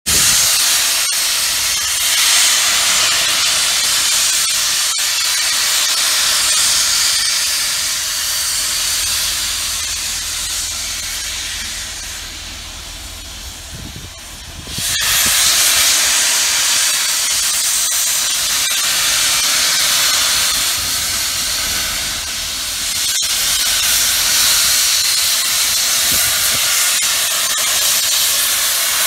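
LMS Royal Scot class 4-6-0 steam locomotive 46115 'Scots Guardsman' approaching slowly with its cylinder drain cocks open, giving a loud steady hiss of steam. The hiss fades somewhat about twelve seconds in and cuts back in suddenly about fifteen seconds in.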